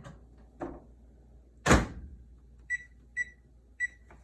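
Microwave oven door shut with a sharp bang, followed by four short, high keypad beeps about half a second apart as the cooking time is entered. A couple of light knocks come just before the bang.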